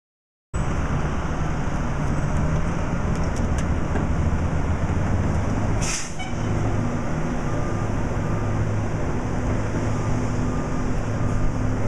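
A steady engine drone with a low hum, starting abruptly about half a second in, with a brief hiss about six seconds in.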